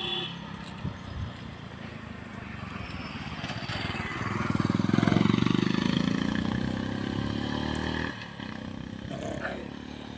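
A motorcycle engine passing by on the road, swelling to its loudest about five seconds in and fading away by about eight seconds.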